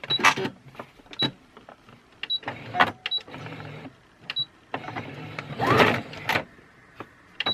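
Brother AS40 computerised sewing machine being tried out: short high beeps, clicks and brief motor whirs that start and stop again. The machine is still not sewing properly after being cleaned of fluff.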